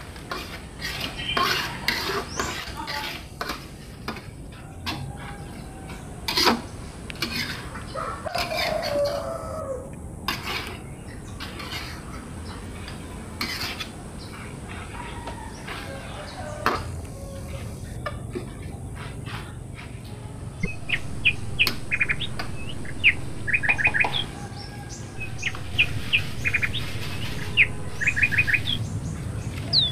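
A metal spatula scraping and knocking against an aluminium wok as greens are stir-fried. Birds chirp in the background, in quick runs of short high notes through the second half.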